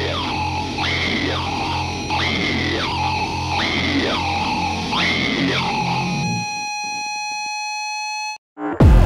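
Rock music: a distorted instrument swings back and forth between a low and a high note about once every 0.7 s over a steady bass. About six seconds in it gives way to a single held note. After a brief drop-out, the full band comes back in loudly near the end.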